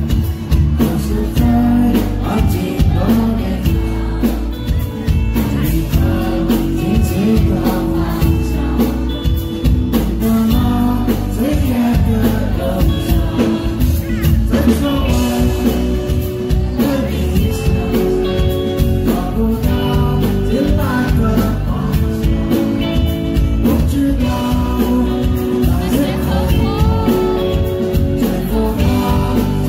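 Live rock band playing: a male lead vocal sung over strummed acoustic guitar, electric guitar and drums.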